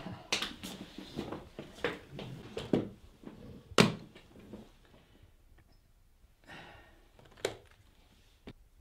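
Knocks and clunks of things being handled in a wooden desk drawer: a string of light knocks, then one sharp thunk about four seconds in and another near the end, as a roll of masking tape and a handheld game console are set down and lifted.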